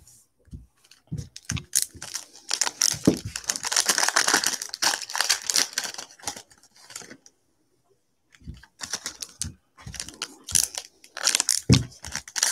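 Crinkling and tearing of a plastic trading-card pack wrapper being opened by hand, in two spells with a short pause between, with small clicks of cards being handled.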